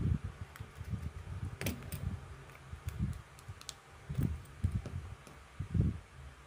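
Irregular low, muffled bumps and a few sharp small clicks a little under two seconds in, from hands and small tools working on a phone during repair.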